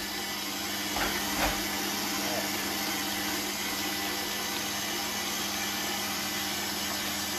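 Kenwood kMix stand mixer's motor running steadily at low speed, its dough hook turning a dry, crumbly naan dough in the steel bowl. There are two light knocks about a second in.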